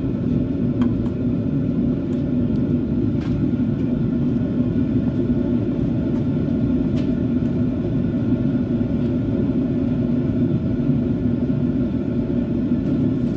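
A steady low rumbling drone of running machinery with a band of hum in it, unchanged throughout, with a few faint scattered clicks over it.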